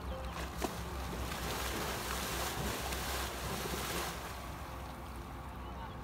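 Horse pawing at shallow river water with a front hoof, splashing repeatedly; the splashing eases off about four seconds in.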